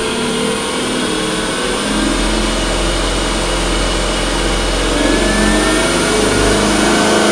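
Grizzly G0733 wood lathe running near its top speed of about 3,200 RPM, its motor and spindle giving a steady whine of several held tones over a low hum, slowly getting louder. It runs smoothly, with no bearing noise from the headstock.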